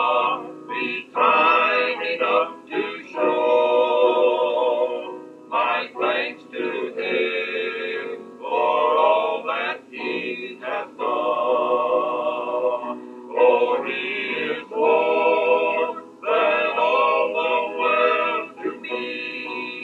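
Male gospel quartet singing sustained phrases in four-part harmony, with thin, narrow-band sound from a 1960s reel-to-reel tape of a radio broadcast.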